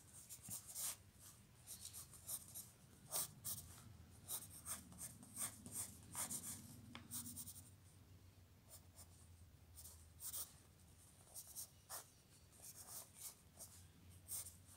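Pencil scratching on paper in quick, irregular sketching strokes, faint.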